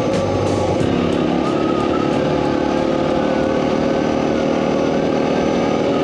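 Suzuki DR650's single-cylinder four-stroke engine running at a steady pace while riding, with cicadas in the background.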